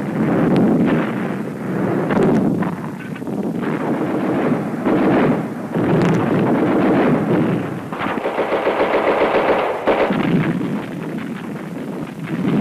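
Battle gunfire on an old film soundtrack: repeated bursts of machine-gun fire, with a fast even rattle around the ninth second. It sounds muffled, with little bass or treble.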